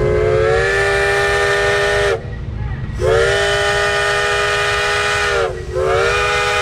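Case steam traction engine's steam whistle blowing three long blasts of several pitches together, each sliding up a little as it opens. The third is still sounding at the end. A steady low rumble runs underneath.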